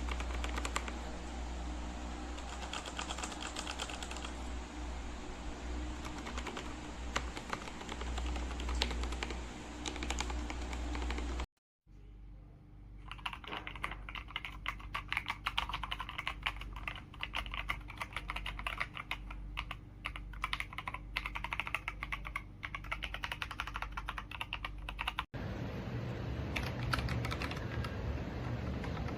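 Rapid typing on an Aigo Darkflash GD100 mechanical keyboard: a dense, steady stream of key clicks, broken by a brief silence a little before halfway and a short dropout near the end.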